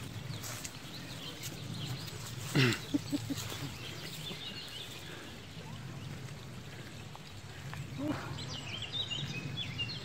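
Woodland birds chirping over the steady sound of the open track, with scattered ticks like footsteps on the dirt path. About two and a half seconds in comes a short loud cry falling in pitch, followed by three quick short pulses, and a brief rising call comes near eight seconds.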